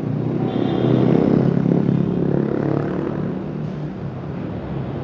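Road traffic: a motor vehicle's engine and tyres running steadily, swelling about a second in and then easing off.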